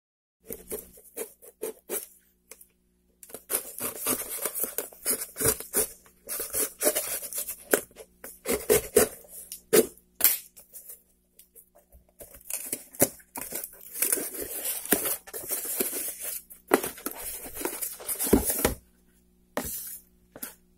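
Small scissors cutting and scraping along packing tape on a cardboard box, with tape tearing and cardboard rustling and scraping in irregular bursts as the box is opened. A faint steady hum runs underneath.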